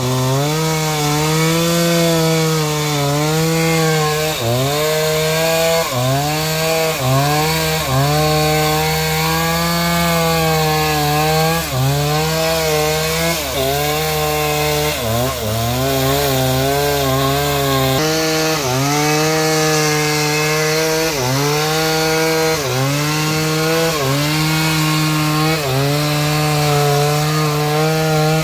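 An engine-driven saw cutting through a large log. Its engine note dips and recovers every second or two as the cut loads it.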